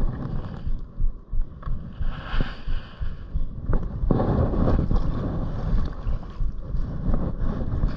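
Wind buffeting the microphone in irregular surges, over water lapping and splashing against a kayak, with a few light knocks.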